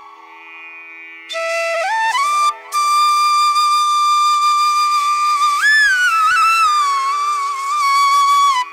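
Background music: a slow melody of long held notes with sliding bends, over a steady drone. It comes in strongly about a second in, after a brief quieter lull.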